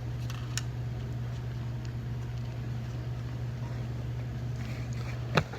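Steady low hum with a light click about half a second in and a sharper tap near the end.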